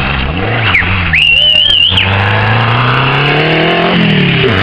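Renault 5 Turbo rally car accelerating hard past through a bend. A high tyre squeal lasts about a second early on, then the engine climbs in pitch and drops sharply at a gear change near the end.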